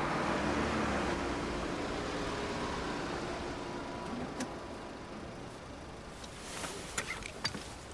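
Hyundai sedan driving by, a steady engine and tyre noise that slowly fades away. A few soft clicks and rustles near the end.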